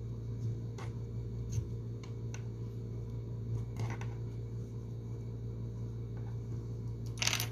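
Soft handling sounds of crochet work: yarn and a crochet hook rubbing and a few light clicks, with a brief louder rustle near the end, over a steady low hum.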